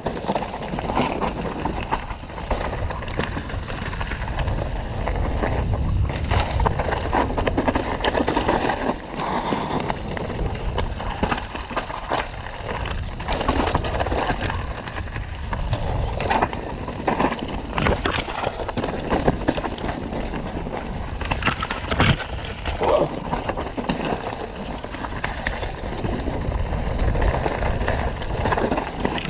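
Mountain bike riding down a rough downhill trail: tyres rumbling over dirt and rock, with frequent clattering knocks from the bike and one sharper knock about three-quarters of the way through.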